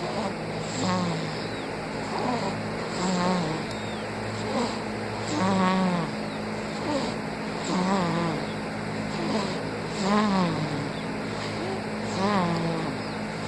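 Baby snoring: a short, pitched snore with each breath, repeating at a little over one a second, over a steady low hum.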